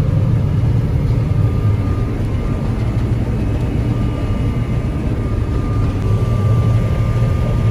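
Combine harvester running steadily while cutting wheat: a constant low engine drone with a thin, steady high whine over it.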